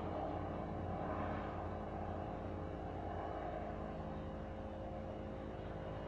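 Distant loaded oil freight train rumbling steadily, with a low engine hum, easing slightly toward the end.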